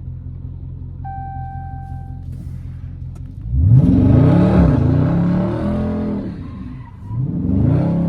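Dodge Charger Scat Pack's 392 HEMI V8 idling, a short dash chime about a second in, then the engine revving hard from about three and a half seconds with its pitch swinging up and down as the car slides with traction control off, easing near seven seconds and revving again.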